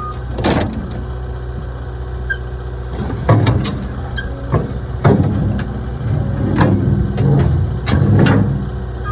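A construction machine's diesel engine running steadily at idle, with a series of clunks and knocks every second or two, the loudest about three and five seconds in.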